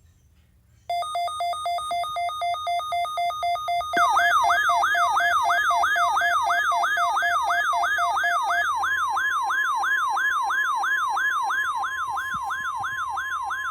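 Electronic alarm tones. A beep pulses about four times a second, and a few seconds in a tone that sweeps upward about three times a second joins it. Partway through, the beeping gives way to the steady 1050 Hz NOAA Weather Radio warning alarm tone, which runs on under the sweep; this is the alarm tone that wakes weather receivers during the weekly test.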